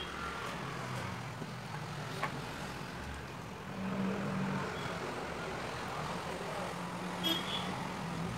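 Steady background din with a low hum, a faint click about two seconds in, and a short high beep near the end.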